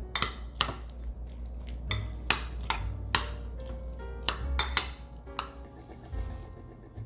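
Irregular clinks and knocks of kitchen utensils against cookware, about a dozen sharp strikes, over soft background music.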